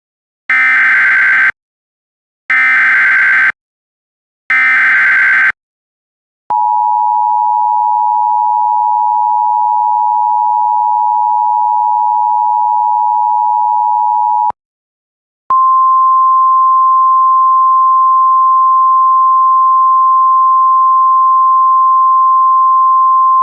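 Emergency Alert System header: three one-second screeching SAME digital data bursts, then the two-tone EAS attention signal held for about eight seconds. After a short gap a single steady weather-radio alert tone follows. Together they signal the start of an emergency alert, here a tornado warning.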